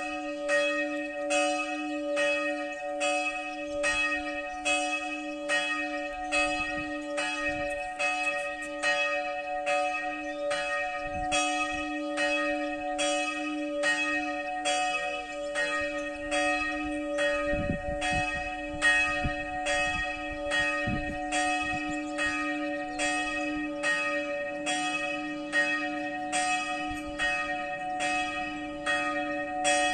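Church bells ringing the noon peal, struck in a quick, even rhythm over a continuous humming tone.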